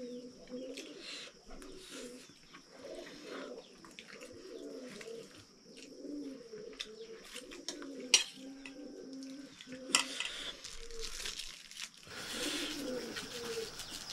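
Pigeons cooing over and over in a low, repeated call, with two sharp clicks of cutlery against metal plates about eight and ten seconds in.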